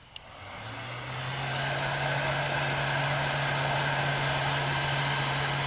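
Heat gun switched on with a couple of clicks, its fan motor spinning up over about a second and a half to a steady whirring hum of blowing hot air, used to shrink heat-shrink tubing over a butt connector.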